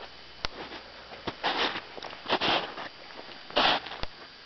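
Footsteps crunching in snow, about three steps at an uneven pace, with a few sharp clicks in between.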